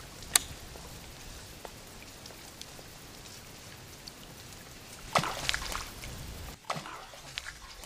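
Small splashes and drips on the river surface where a spinnerbait is being retrieved near lily pads, loudest in a cluster about five seconds in, with a few more near the end. A single sharp click sounds just after the start, over a steady hiss.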